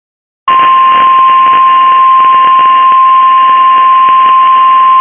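NOAA Weather Radio warning alarm tone: one loud, steady, high-pitched beep over radio hiss, starting about half a second in. It is the signal that a warning is about to be broadcast, here a severe thunderstorm warning.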